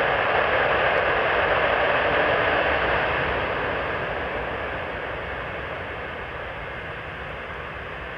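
Avro Vulcan's Rolls-Royce Olympus turbojets running on a ground engine test: a steady rushing jet noise that dies down gradually from about three seconds in.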